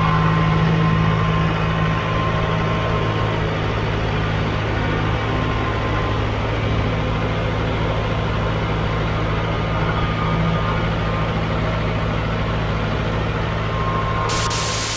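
McCormick X6.415 tractor's 4.5-litre four-cylinder FPT diesel engine running with a steady low drone.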